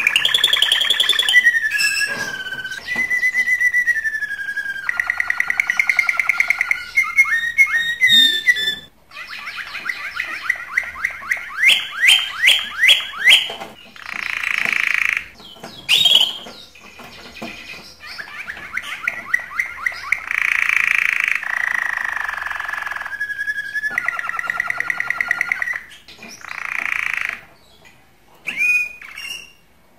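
Domestic canary singing a long, varied song of rapid trills, whistled glides and buzzy rolls, phrase after phrase with short breaks. It is the excited courtship song of a bird in breeding condition.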